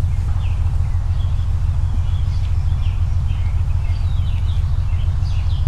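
Birds chirping with many short, high calls, over a loud steady low rumble.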